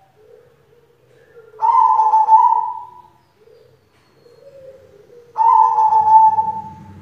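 White zebra dove (perkutut) cooing: soft low coos, broken twice by a loud drawn-out note that starts abruptly and fades off after about a second and a half. This is the 'kong' voice that perkutut keepers prize.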